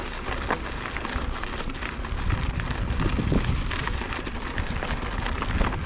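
Motobecane HAL Boost Eagle mountain bike rolling over rocky desert single track: tyres crunching on dirt and gravel, with many small clicks and rattles over a steady low rumble.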